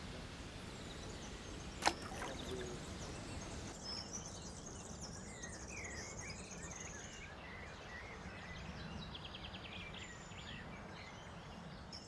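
Quiet riverside outdoor ambience with birds chirping and calling, and a brief rapid rattle about nine seconds in. A single sharp click about two seconds in is the loudest sound.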